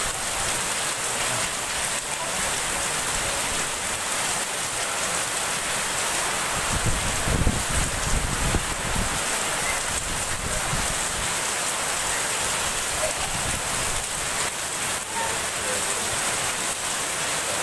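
Heavy rain pouring down in a steady, dense hiss, with a louder low rumble for a couple of seconds about seven seconds in.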